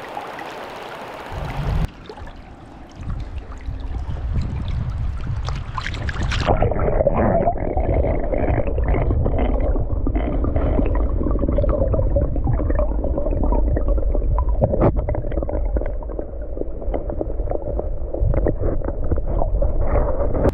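Moving river water heard through a camera microphone that is underwater: a muffled, low rumble of current with gurgling and many small knocks. Above the water at first, it goes fully muffled about six seconds in.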